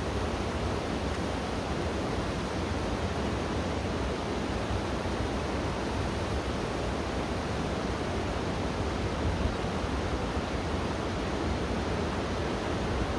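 River water rushing steadily over rocky rapids and a small fall, an even, unbroken noise.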